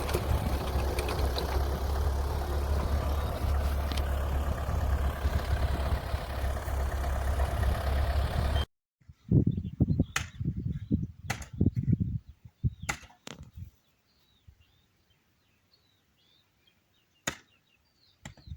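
Motor of a homemade rotary tiller running steadily with a deep rumble, stopping abruptly about nine seconds in. Scattered low bumps and a few sharp clicks follow, with faint bird chirps.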